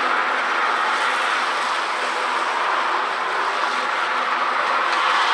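Ryobi RY40181 40-volt cordless electric lawn mower running steadily, its brushless motor and 20-inch blade spinning: an even rushing sound with a faint hum underneath.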